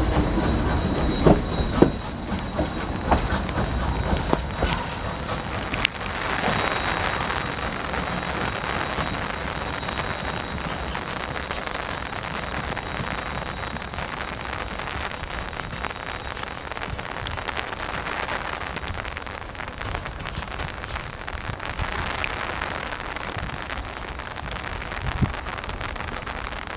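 Steam train at close range: a steady hissing rush with some clanks in the first few seconds. A faint high whine runs under it and stops about halfway through.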